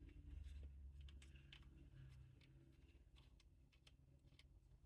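Near silence: faint, scattered clicks of a plastic pistol chassis kit being handled as its main screw is undone, over a low steady hum.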